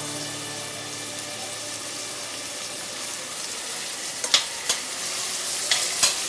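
Chopped onions sizzling steadily in hot oil in a pan on a low flame, browning. A few sharp knocks of a utensil against the pan come about four seconds in and near the end.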